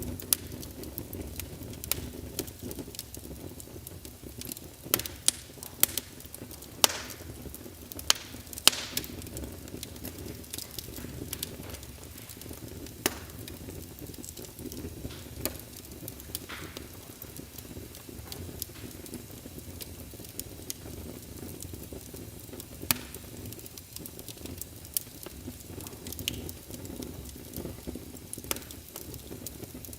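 Campfire burning: irregular sharp pops and crackles over a steady low rumble, the loudest pops a few seconds in.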